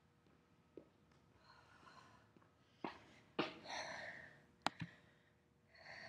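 Faint breathing after exertion, with a few sharp knocks and rustles, the loudest a pair of knocks a bit over halfway through, as the camera is handled up close.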